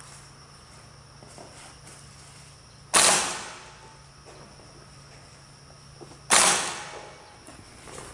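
Two loud, sharp airsoft gun shots about three seconds apart, each trailing off over about half a second, over a steady high insect drone.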